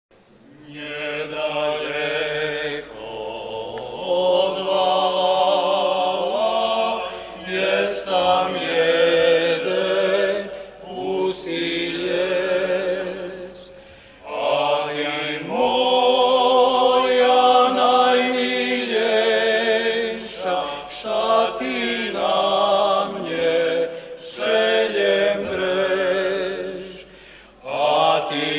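A group of men singing a traditional Rusyn lads' folk song a cappella, the voices together in long held phrases with brief breaks between them.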